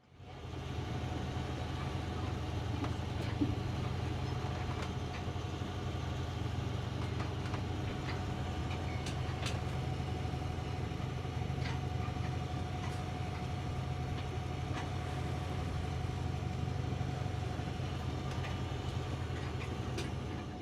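Sailboat's auxiliary engine running steadily under way, a constant low drone with a faint steady higher tone over it and a few light clicks.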